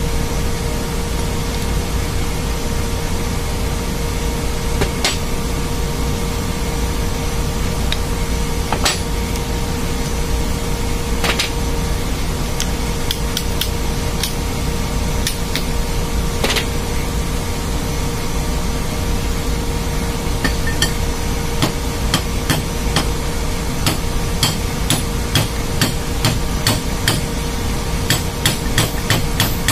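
Steady loud drone of running ship's engine-room machinery with a constant hum. Over it come sharp metal taps and knocks from work on an electric motor's rotor shaft and bearing: a few scattered ones at first, then quick runs of taps through the last third.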